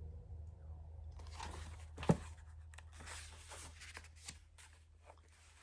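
Paper rustling and crinkling as a picture-book page is handled and turned, with one sharp tap about two seconds in, over a low steady hum.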